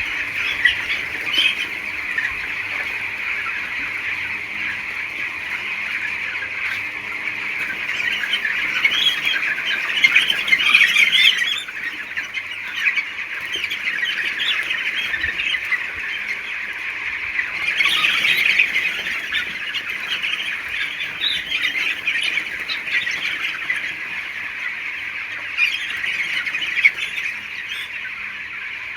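A large flock of young chicks peeping and cheeping all at once in a dense, unbroken chatter, growing louder for a while about ten seconds in and again a little past halfway.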